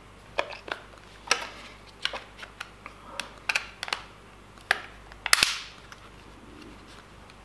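Sharp plastic clicks and snaps from a Nokia 2720 Flip as its battery and back cover are fitted: about a dozen separate clicks spread over several seconds, the loudest a little past five seconds in.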